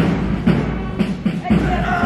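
Marching music with a steady drum beat, about two beats a second; a sustained melody note comes in near the end.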